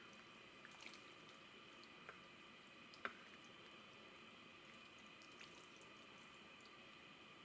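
Faint, sparse soft pops of thick tomato-and-bean lecho simmering in a pot, with one louder pop about three seconds in, over a faint steady hiss.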